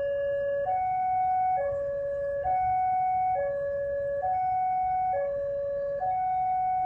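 Railway level-crossing warning alarm sounding: an electronic two-tone hi-lo signal, a lower and a higher note alternating about every second without a break, warning that a train is approaching.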